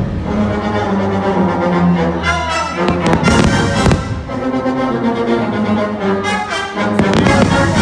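Loud orchestral fireworks-show soundtrack with strings and brass, and firework bursts going off over it a few times.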